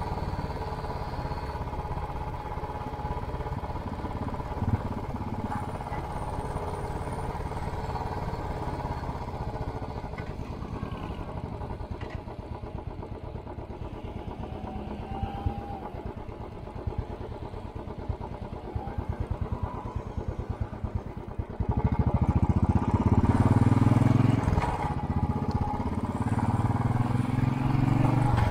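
Royal Enfield Classic 500's single-cylinder engine thumping through a Hitchcock's aftermarket exhaust pipe. It runs at low revs for a while, then about three-quarters of the way in it opens up loudly under acceleration. The pitch rises, dips briefly, and rises again.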